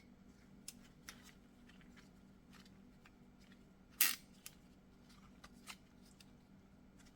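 Scattered light metallic clicks and clinks of brake tools and parts being handled, with one sharp clack about four seconds in, over a faint steady hum.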